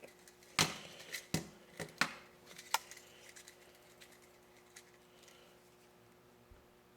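Small clicks and taps from a soldering iron and wire being handled: about six sharp ones in the first three seconds, then a few faint ticks, over a faint steady hum.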